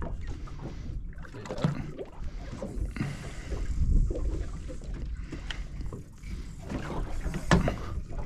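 Small boat drifting at sea: water lapping against the hull with wind on the microphone, and scattered knocks and clicks, the sharpest near the end.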